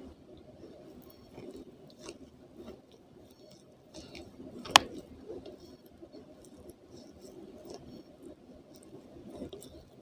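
A person chewing a mouthful of clay, slow soft wet chewing and squishing, with one sharp click about halfway through.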